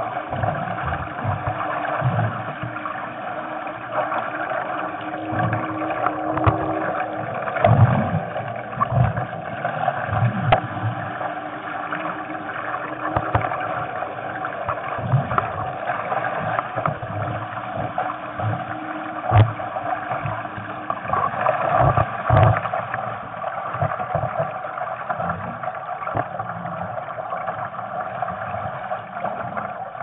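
Water rushing and gurgling along the hull and foils of a Bladerider International Moth dinghy under sail, with irregular dull thumps.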